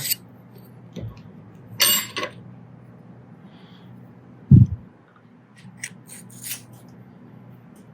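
Small metal parts being handled: light clicks and clinks of a hole saw arbor, hex key and pilot bit as the bit is pulled out and a new one fitted, with a ringing clink about two seconds in and a dull thump about halfway through. A faint low hum runs underneath.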